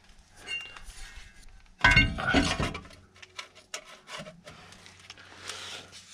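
A new brake disc being offered up and slid onto a BMW's rear wheel hub: a loud metallic clank with a brief ring about two seconds in, then light knocks and scraping as it is seated.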